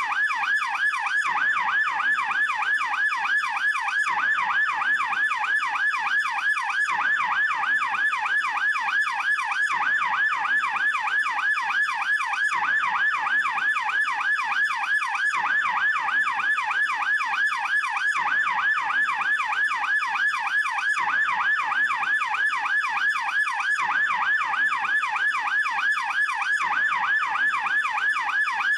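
German police yelp siren, fast version, wailing without a break, its pitch sweeping up and down rapidly several times a second.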